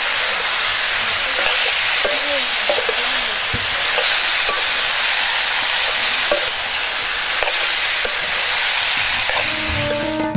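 Vegetables sizzling as they stir-fry in a steel wok, a steady hiss, with a metal ladle scraping and clinking against the pan now and then. Music comes in at the very end.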